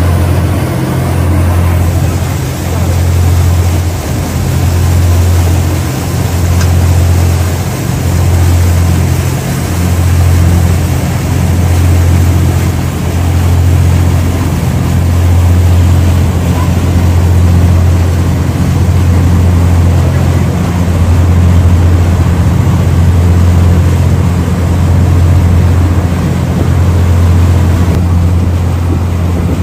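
Car ferry Harukaze under way: a steady low drone from the ship's engine with a broad rushing noise over it, swelling and easing a little in the first seconds.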